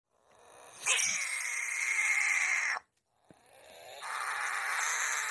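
Horned (Pacman) frog screaming: two long screams, each swelling up and then cutting off abruptly, the second starting about half a second after the first ends. This is the horned frog's defensive distress scream when disturbed.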